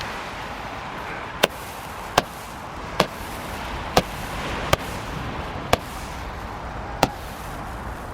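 A consumer firework fires seven sharp bangs, roughly one a second, over steady wind noise on the microphone.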